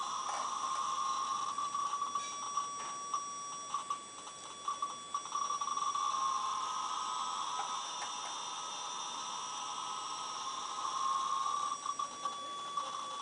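Piezo speaker buzzing, driven directly by a thermal sigma-delta accelerometer's output bitstream: a steady tone near 1 kHz with fainter higher overtones. The buzz comes from quantization noise gathered at a few frequencies because the modulator clock is too slow. It breaks into short crackles and flickers a few seconds in and again near the end, as the board is tilted by hand.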